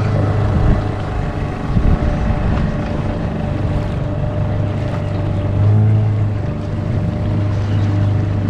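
A motorboat engine running at a steady low drone, swelling briefly about six seconds in, with wind on the microphone.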